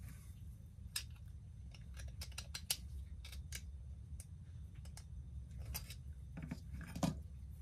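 Irregular small, sharp clicks and snips of small tools and parts being handled at a workbench, about ten in all, the loudest about seven seconds in, over a steady low hum.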